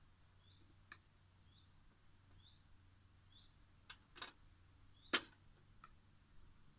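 A hand tool working on the end of a power cable while its semiconductor layer is stripped, giving a few sharp clicks and two louder scraping strokes about four and five seconds in. A short rising bird chirp repeats faintly about once a second.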